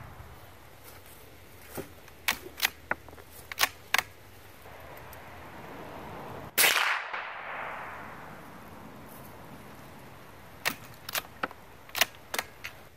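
A single shot from a scoped Savage .22 rimfire bolt-action rifle about six and a half seconds in, a sharp crack that trails off. Clusters of small metallic clicks come before and after it as the bolt is worked to eject the case and chamber the next round.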